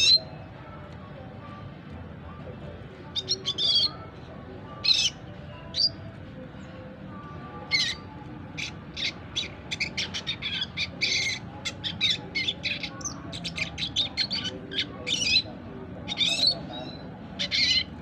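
Four-month-old red siskin singing: a few scattered sharp calls, then from about halfway a fast run of short chirps, the young bird's still-unfinished ngriwik twitter.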